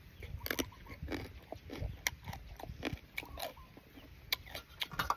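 A man chewing a mouthful of food close to the microphone: irregular wet smacks and small sharp clicks of eating.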